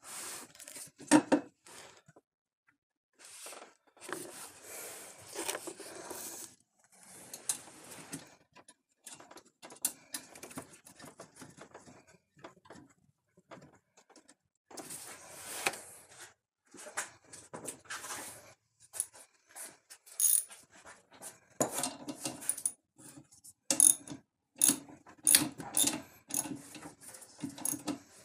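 Plastic windshield cowl panel of a 2022 Ford Maverick being pressed down by hand, its retaining clips snapping into place. Plastic rustles and creaks at first, then a run of sharp clicks in the second half.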